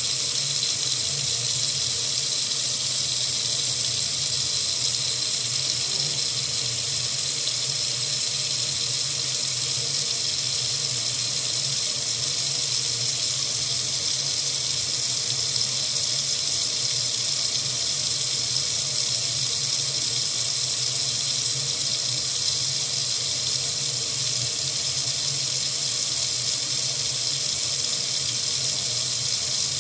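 Water running steadily from a faucet, an unbroken hiss with no change in flow.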